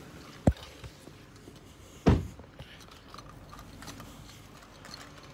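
Two short thumps about a second and a half apart, the second louder, over a low steady background.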